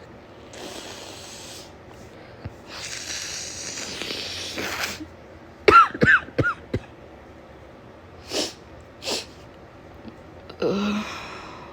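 A woman with a head cold and chesty cough: long breathy sounds, then a quick run of hacking coughs about halfway through, two short sniffs, and another cough near the end.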